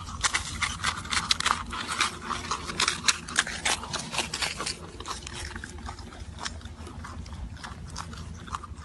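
An animal chewing: a quick run of sharp, crunchy clicks that thins out about halfway through.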